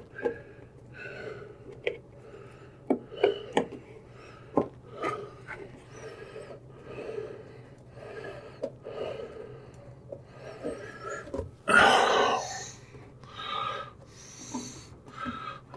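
Rubber door seal of a Whirlpool front-loading washer being pressed by hand onto the cabinet's opening: soft rubbing and a few sharp clicks, with the worker's breathing in regular puffs. A louder rush comes about twelve seconds in.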